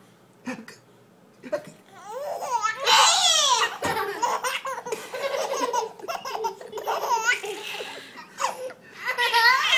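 Four-month-old baby laughing in repeated high-pitched bursts, starting about two seconds in and loudest near three seconds and again near the end.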